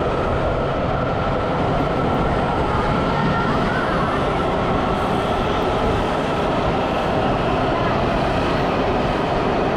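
Washington Metro subway train running, a steady loud rumble and rush of noise heard from inside the car, with a faint high whine over it.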